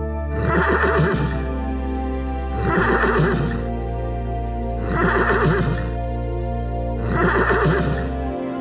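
A horse whinnying four times, about two seconds apart, over steady background music.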